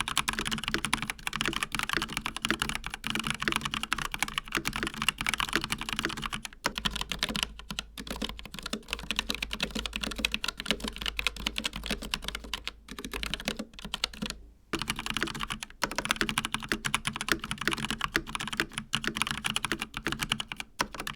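Fast typing on ASUS ROG NX Red linear mechanical switches (Flare II Animate keyboard). About a third of the way in it changes to typing on ASUS ROG RX Red optical-mechanical switches (Strix Scope RX keyboard), which sound quieter and sparser. Near two-thirds of the way in it changes back to the louder NX Red typing.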